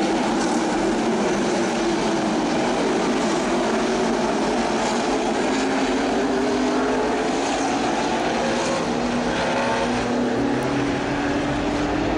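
NASCAR stock cars' V8 engines running on the track: a steady drone of several engines at once, their pitches slowly rising and falling as the cars pass.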